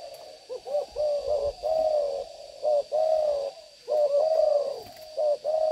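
Caged spotted doves of a deep-voiced (âm) line cooing. They give about four phrases, each a couple of short notes followed by a longer held coo. A faint steady high-pitched tone runs underneath.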